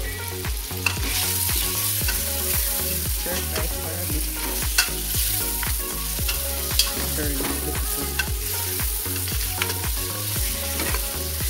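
Pieces of seasoned goat meat sizzling and frying in hot curry oil in an aluminium pressure-cooker pot, stirred with a wooden spoon. A steady sizzle runs throughout, with scattered sharp knocks and scrapes of the spoon against the pot.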